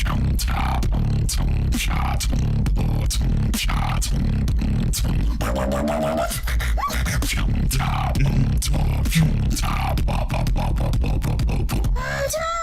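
Dubstep-style beatboxing: fast, dense kick and snare clicks over a continuous deep bass, with wavering pitched vocal bass notes here and there.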